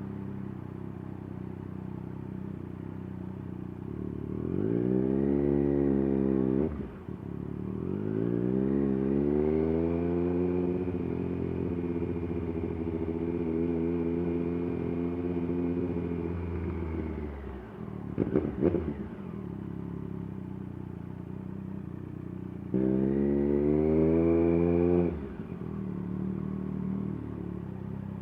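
Triumph Daytona 765 Moto2's three-cylinder engine and exhaust under way, pulling up through the revs three times and dropping back in between. A few sharp crackles come about two-thirds of the way in, as the revs fall.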